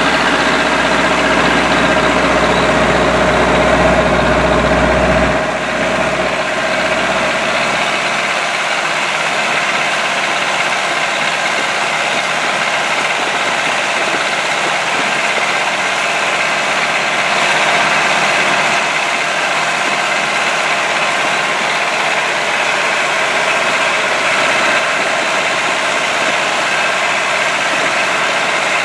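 MTZ-82 tractor's four-cylinder diesel engine running steadily under load while pulling a row-crop cultivator, heard from inside the cab. The deep low rumble eases off about five seconds in.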